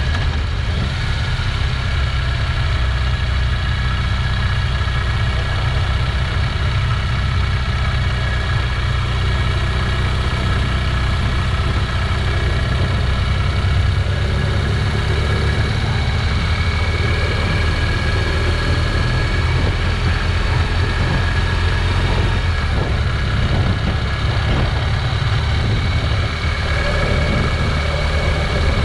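Motorcycle engine running steadily at road speed, heard from the moving bike with wind rushing over the microphone.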